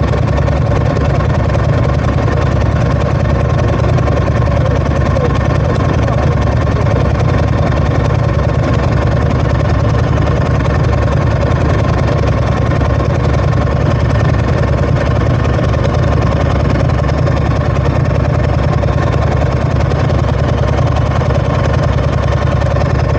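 Ducati ST4s motorcycle's 996 cc L-twin engine running loud and steady at an unchanging speed.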